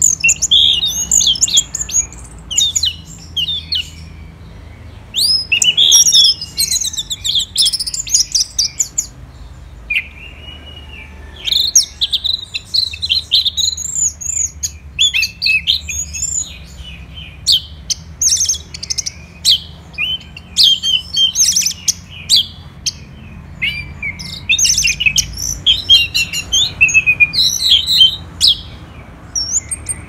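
Orange-headed thrush singing in long bursts of rapid, varied high twittering notes, about five bursts separated by short pauses.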